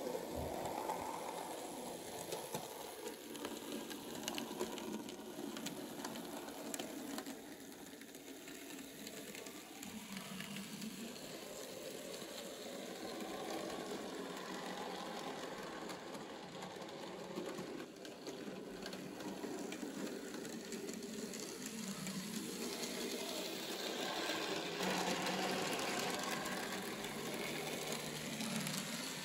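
Small electric motor of a restored 1960s Egger-Bahn model tram locomotive whirring, with its gears and wheels rattling on the model track as it runs. The sound wavers steadily and grows somewhat louder near the end.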